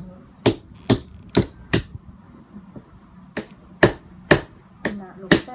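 Repeated sharp knocks as a cooked crab's shell is struck to crack it open: four blows in quick succession, a pause of about a second and a half, then five more.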